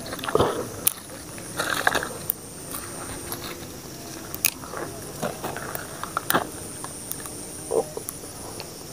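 Scattered crackling, snapping and rustling of dry twigs and brush being handled close to the microphone as fishing line is worked free of them, with a few sharp clicks. A faint steady high-pitched tone runs underneath.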